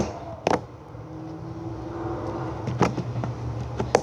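Sharp clicks and taps of plastic containers being handled while slime activator is added, a few separate knocks early on and a quick cluster near the end, over a low steady hum.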